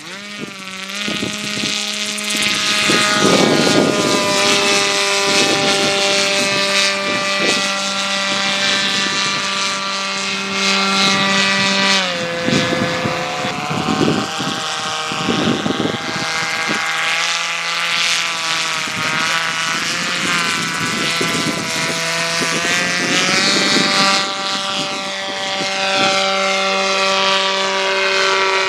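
Radio-controlled model autogyro flying, its propeller engine running as a continuous drone whose pitch shifts a few times.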